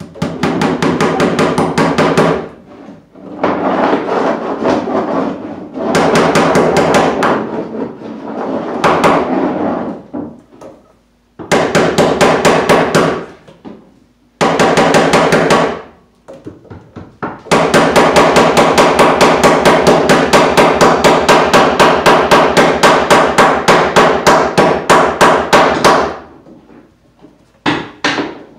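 Hammer tapping rapidly against overhead wooden floor joists, several sharp strikes a second, as electrical cable is fastened along them. The taps come in runs of a couple of seconds, with one long run of about eight seconds in the second half.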